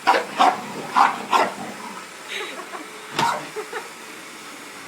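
English bull terrier barking: a quick run of four short barks in the first second and a half, then one more about three seconds in.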